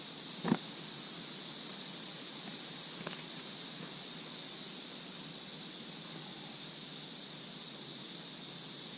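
Steady high-pitched drone of insects in summer vegetation, with a sharp click about half a second in and a fainter one about three seconds in.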